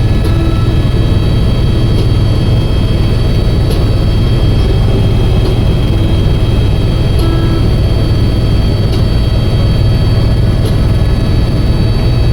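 Helicopter in flight heard from inside the cabin: a steady, loud low rumble with a steady high whine over it.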